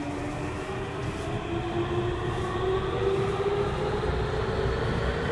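Tokyu 3000 series train heard from inside the car, accelerating: the VVVF inverter whine rises in steps over the rumble of the running gear. This whine is the sign that the car still runs its original, unupdated VVVF software.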